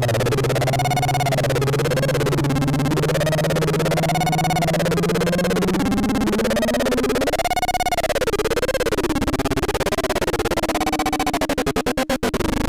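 Fort Processor experimental noise synthesiser circuit: a tone swoops up and down in repeated arches about once a second over a low drone whose pitch slowly rises. Near the end the sound breaks into a rapid stutter.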